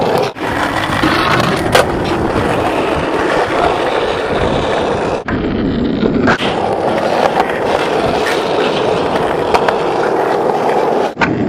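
Skateboard wheels rolling steadily over concrete. About five seconds in the rolling noise cuts out for roughly a second as the board leaves the ground, and it comes back with a sharp landing clack. Just before the end the rolling drops out again.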